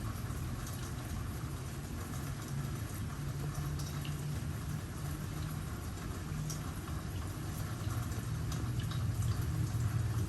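Rain falling, with scattered drops ticking over a steady low rumble that is the loudest part throughout.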